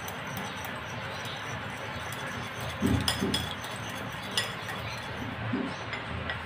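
Wire whisk beating a raw egg in a glass bowl, its wires clinking and scraping steadily against the glass, with a couple of duller knocks about halfway through.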